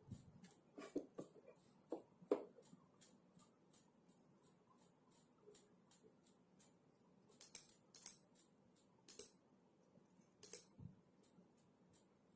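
Faint typing on a computer keyboard: a steady patter of light key clicks, about three a second, with a few louder taps in the first few seconds.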